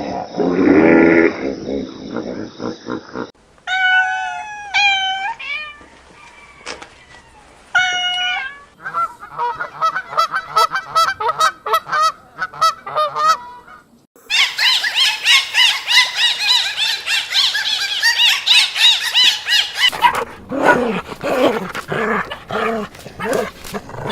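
Calls from several different animals in turn: a low lowing call at the start, then high whistled calls gliding up and down, rapid repeated squeaks, a dense chorus of high-pitched calls, and lower yelps and growls near the end.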